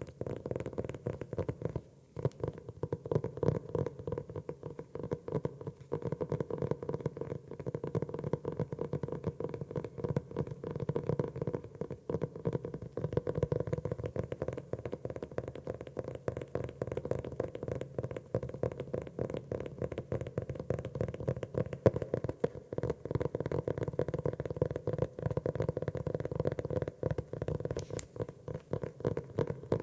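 Fingers tapping rapidly on a notebook cover, a dense run of quick soft taps with a short pause about two seconds in.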